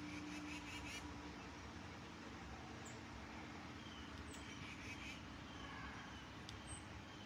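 Faint steady low rumble of outdoor background noise, with a low hum that fades out about a second in and a few faint, high bird chirps scattered through.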